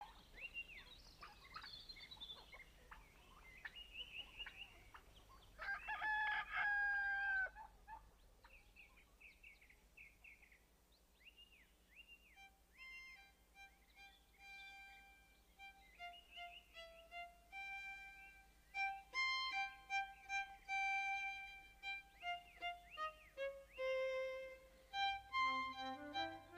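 Birds chirping, and a rooster crowing once about six seconds in. From about twelve seconds a solo violin plays a melody that grows fuller toward the end.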